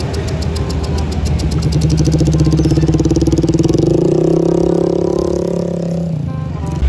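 Motor scooter engine running at steady revs up a steep climb. Its steady drone builds about a second and a half in and cuts off abruptly near the end.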